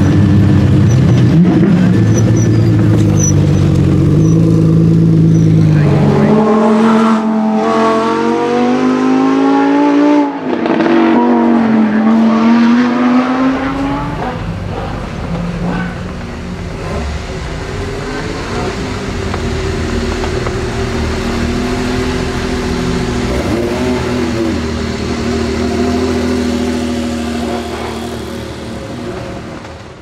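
Lamborghini Huracán EVO Spyder's 5.2-litre V10 running with a low rumble, then revved up twice between about six and thirteen seconds in, its pitch climbing with a brief break between the two. It then falls back to quieter steady running at low revs.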